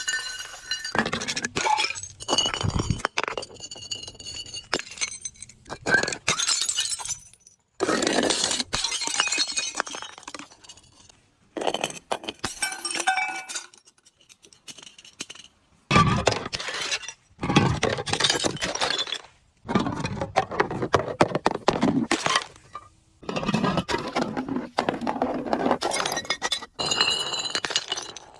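Glass breaking and being crushed: crackling, crunching and clinking in repeated bursts of one to two seconds with short pauses between them.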